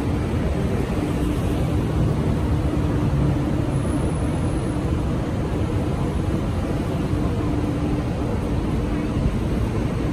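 Steady outdoor street ambience: a dense low rumble, likely traffic and air moving past a handheld microphone, with no distinct events.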